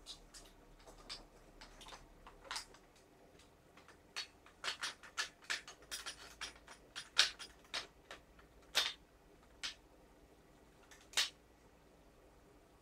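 Irregular light clicks and taps of small gun parts being handled and fitted while assembling a WE M4 gas blowback airsoft rifle's open-bolt conversion, most of them bunched in the middle few seconds.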